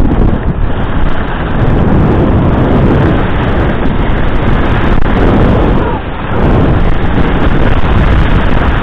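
Wind rushing over the microphone of a skier's camera during a fast descent, mixed with skis scraping over hard-packed snow. It eases briefly about six seconds in.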